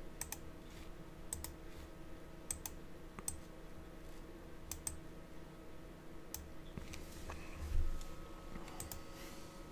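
Scattered sharp clicks of a computer mouse and keyboard, a dozen or so at uneven intervals, over a steady low electrical hum, with a soft low thump near the end.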